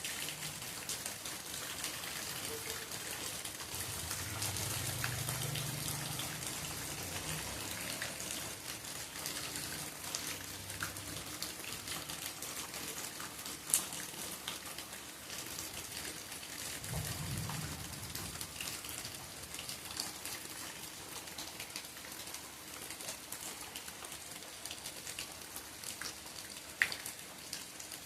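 Steady rain falling, with many close drops tapping and a couple of sharper single drops standing out midway and near the end. A faint low rumble comes and goes twice.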